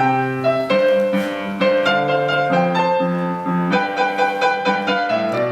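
Piano-led instrumental music: a bouncy keyboard introduction with a moving bass line, starting suddenly.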